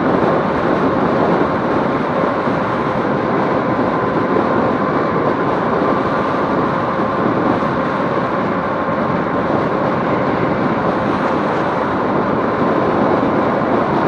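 Steady road and wind noise from a Romeo Ultra 2 electric bike under way, with a faint steady whine.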